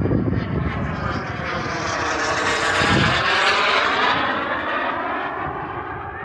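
Radio-controlled model airplane flying past overhead, its engine note swelling and rising in pitch toward the middle, then dropping and fading as it goes away.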